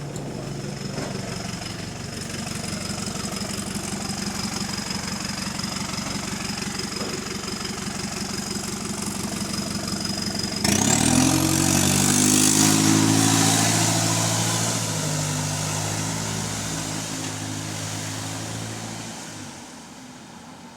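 Single-decker bus diesel engine idling with a thin high whine. About ten seconds in it pulls away, suddenly louder, revving up through the gears with a loud hiss and blow from a leaking exhaust, then fades as it moves off. The exhaust leak is as loud as last time.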